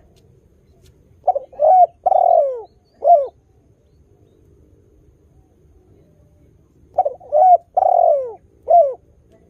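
Spotted dove (tekukur) cooing: two phrases of four notes each, about five seconds apart, each note sliding down in pitch.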